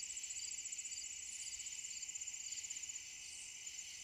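A chorus of night insects such as crickets: a steady, high, fast trill with a second steady buzz below it and a short chirp repeating about twice a second.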